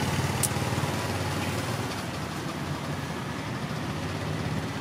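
A motor engine idling with a steady low hum that slowly gets a little quieter, with a single brief click about half a second in.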